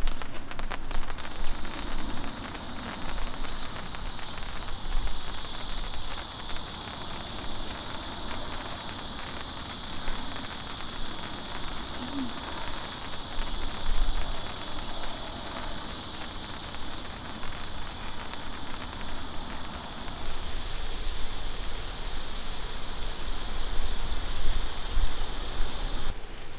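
Light rain pattering on a camp tarp, with a steady high-pitched insect chorus over it that swells about five seconds in and cuts off abruptly near the end.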